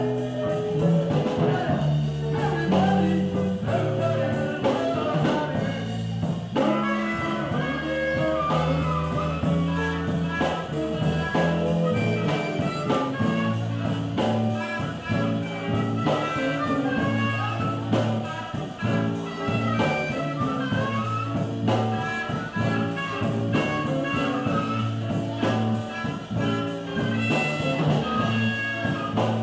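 Rock band playing a blues number live, with sustained low bass notes under busier melodic lines higher up.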